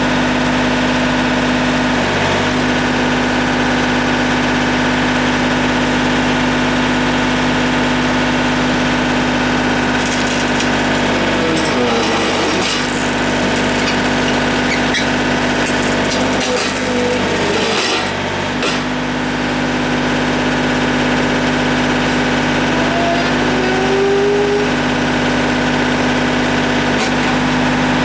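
John Deere 110 backhoe loader engine running steadily, with irregular clatter and knocks in the middle.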